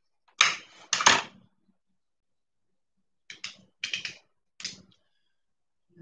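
Sharp taps and clacks of small hard objects being handled: three loud knocks close together in the first second and a half, then a quicker run of lighter taps a few seconds later.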